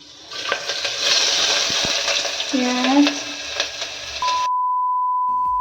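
Food sizzling in a hot frying pan, a dense steady hiss that stops abruptly about four and a half seconds in, followed by a steady high-pitched beep lasting over a second.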